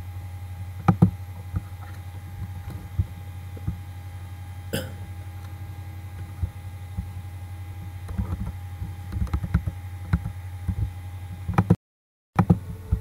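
Scattered short clicks and soft thumps from operating the computer, over a steady low hum. The sound cuts out completely for about half a second near the end.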